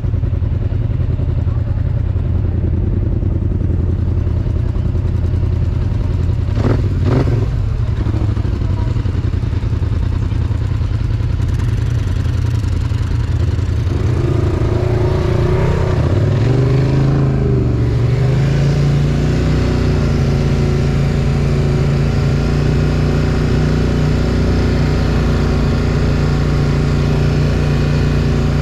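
Polaris ATV engine idling steadily, then rising in pitch as the quad pulls away around the middle, and running on at a steady higher pitch while riding.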